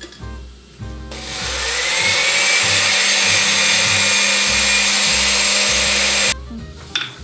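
Countertop electric blender switched on about a second in, spinning up and running steadily for about five seconds as it blends a mayonnaise-and-vinegar vinaigrette, then cut off suddenly. A short click follows near the end.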